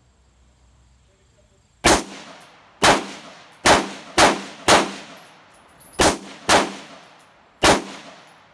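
Eight gunshots fired one at a time at an uneven pace, each with a short ringing tail, as the shooter empties the last rounds in the magazine.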